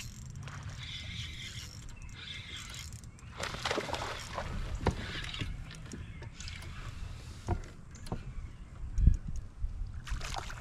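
Knocks and splashing around a fishing kayak, over a steady low rumble, with the loudest thump about nine seconds in.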